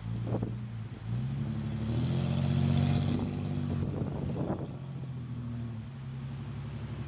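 4x4 SUV engine working under load as the vehicle climbs out of a stream and up a steep dirt slope. The engine note rises about a second in, is loudest a couple of seconds later, then settles to a steadier, lower run, with a few short knocks over it.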